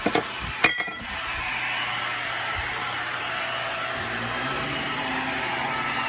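Hoover React Powered Reach Premier Pet upright vacuum running steadily over carpet, with a few sharp knocks in the first second.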